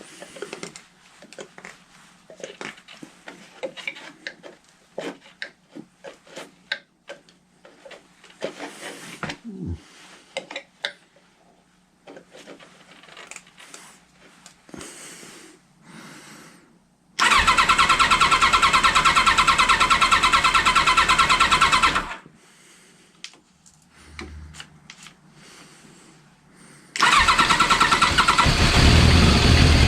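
Small clicks and knocks, then a motorcycle's electric starter cranks the engine steadily for about five seconds and stops without it running. After a pause it cranks again and near the end the engine begins to fire: the first start after its Keihin carburettors were stripped and rebuilt.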